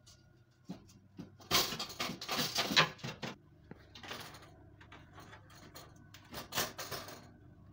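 Extractor fan's white frame scraping and knocking against the rough edges of the wall opening as it is pushed and worked into place, in a few bursts, the longest and loudest about a second and a half in.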